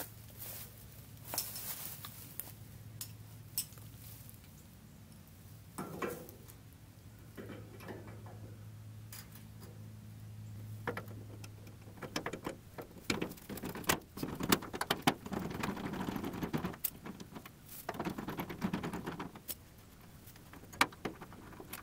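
Scattered clicks and clinks of metal hand tools, then several seconds of dense, rapid clicking as a bolt is undone from a Triumph Spitfire's hood hinge. A low steady hum runs under the first half and stops about halfway through.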